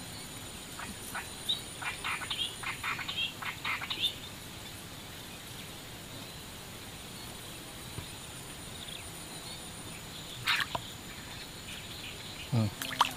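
Bursts of short, sharp animal calls, a quick run of them from about one to four seconds in and a couple more near ten and a half seconds, over a steady outdoor background with a thin high whine.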